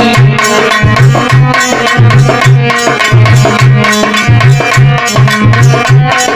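Instrumental interlude of a Hindi devotional sumiran song: a quick drum rhythm over a melody line and a repeating low bass figure, with no singing.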